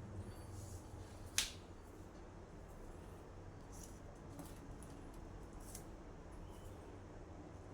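A single sharp click about a second and a half in, followed by a few faint ticks, over a low steady hum.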